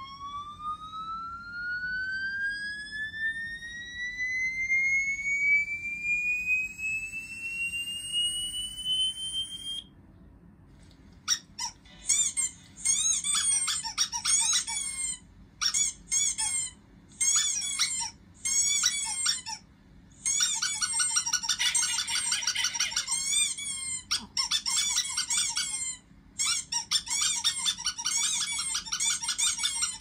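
A high electronic 'mosquito tone' played through a smartphone speaker, one tone rising steadily in pitch until it cuts off about ten seconds in. Then squeaky dog-toy squeaks from the same phone, in short bursts at first and almost without a break from about twenty seconds on.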